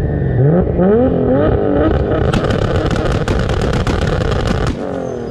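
Car engine revving up through quick successive gear changes, then running hard with a rapid train of sharp crackles for a couple of seconds. Near the end the sound drops off suddenly and the revs fall away.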